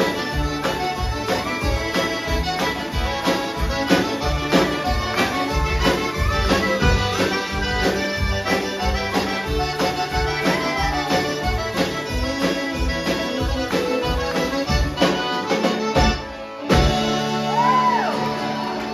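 Live country band playing an instrumental passage led by button accordion over fiddles, guitar, upright bass, pedal steel and a steady drum beat. The sound drops out briefly about sixteen seconds in, then comes back as a held closing chord.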